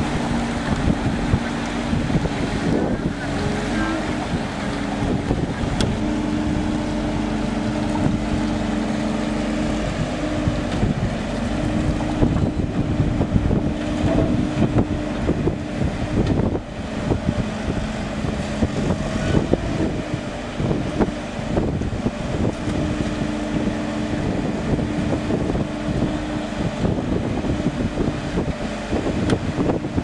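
An amphibious backhoe dredger's engine runs steadily while its excavator arm digs and swings. It gives a two-note hum that fades in and out, over heavy wind buffeting on the microphone.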